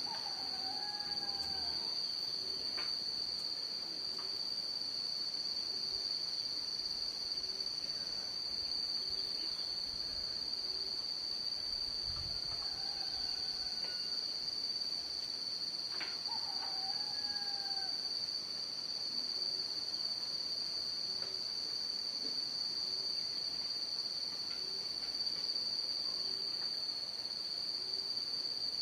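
Steady, unbroken high-pitched chorus of crickets or similar insects. Faint distant bird calls come through it near the start, about twelve seconds in, and again about sixteen seconds in.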